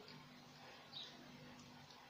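Near silence: faint room tone with a steady low hum, and one faint short sound about a second in.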